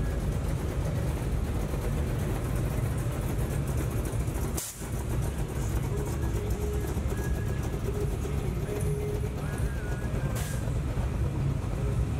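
Engines of lowered classic Chevrolet trucks running as they roll past slowly, a steady low exhaust drone.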